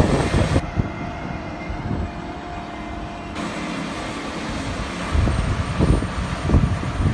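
Diesel engines of a large John Deere tractor and a tipped dump truck running steadily, a low mechanical drone. From about five seconds in, wind buffets the microphone in gusts.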